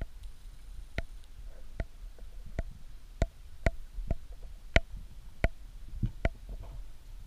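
About eight sharp, irregularly spaced clicks underwater, some with a brief ring, over a steady low underwater rumble.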